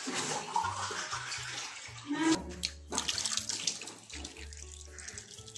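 Water poured from a glass into a cooking pot of dry soaked chana dal, chicken mince and whole spices, splashing onto the dry ingredients.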